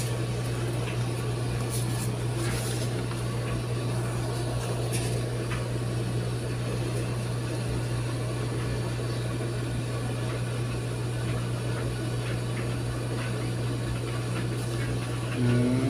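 Fujidenzo DRI-801WG front-load tumble dryer running: a steady, even low hum.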